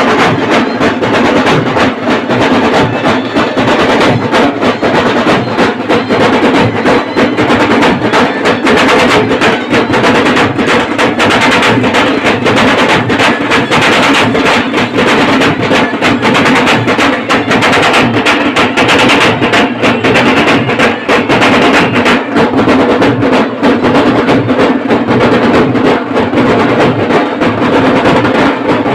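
Traditional dhol and tasha drumming, loud and continuous, with fast, dense beats and rolls that do not pause.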